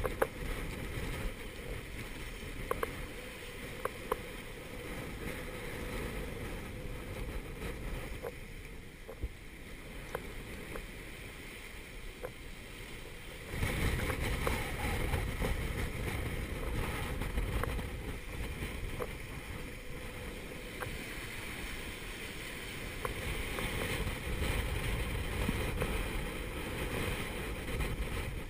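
Gale-force wind buffeting the microphone over the rush of breaking seas around a small sailboat's stern, a steady heavy rumble that grows louder about halfway through. A few sharp clicks sound near the start.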